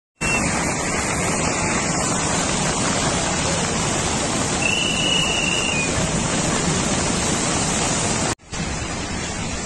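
Flash-flood torrent of muddy water rushing, a steady dense noise of churning water. It drops out for an instant near the end and resumes slightly quieter.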